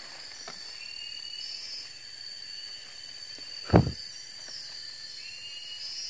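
A steady high-pitched insect drone, with one loud thump about four seconds in.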